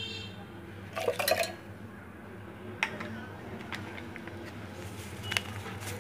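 Milk poured from a bowl into a stainless steel blender jar, splashing briefly about a second in, followed by a few sharp light taps over a low steady hum.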